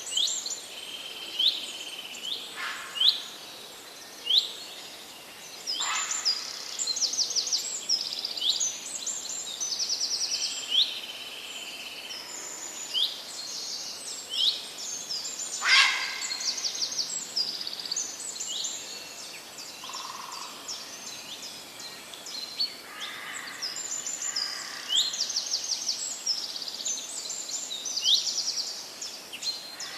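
Several songbirds singing and calling over the faint steady wash of a forest stream: many short high chirps and rapid trills, with a few louder, sharper calls.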